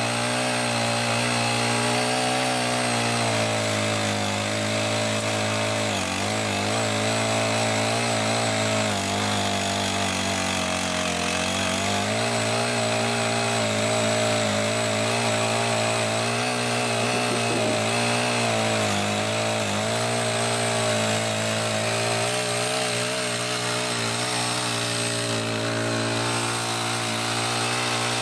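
Honda GX35 four-stroke engine of a small garden tiller running steadily at working speed, its pitch dipping briefly twice.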